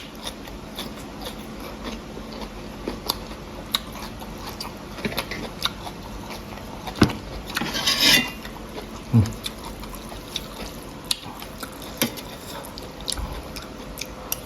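A person eating a bowl of noodle soup: chewing, with spoon and chopsticks clicking against the bowl, and one brief slurp about eight seconds in.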